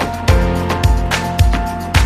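Background music with a steady beat: a drum hit about twice a second over held synth tones.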